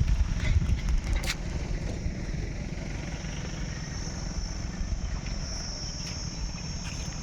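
Outdoor ambience: insects making a steady high drone that grows a little louder near the end, over a low rumble, with a single sharp click about a second in.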